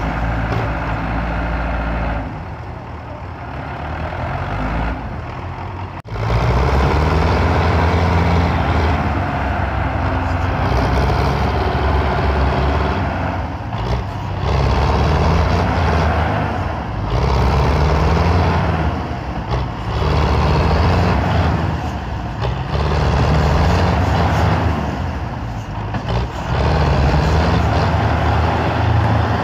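Belarus tractor's diesel engine labouring under full load, pulling a heavily loaded sugarcane trolley stuck in mud. It runs quieter for the first few seconds, then rises sharply about six seconds in and keeps surging up and down every two to three seconds as the throttle is pushed again and again.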